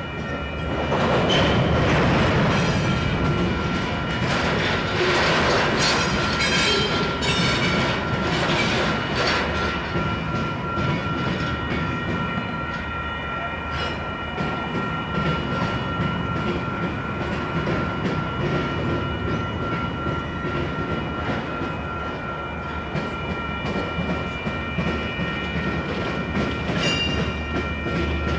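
Union Pacific freight train rolling past, its wheels clicking and clattering over the rail joints, with a steady high whine over the rumble. The clatter is busiest in the first ten seconds.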